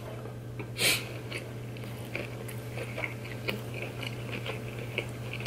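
A person chewing a mouthful of food, soft mouth clicks throughout, with one louder noise about a second in.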